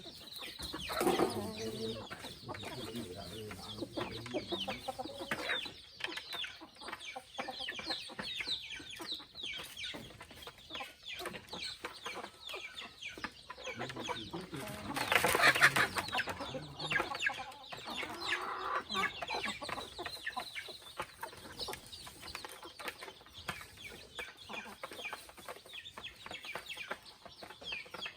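Flock of free-range chickens clucking, with many short overlapping calls and a louder burst about halfway through.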